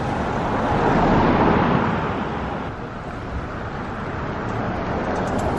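Road vehicle noise, a steady rush that swells about a second in, as if a vehicle passes close by, then eases off.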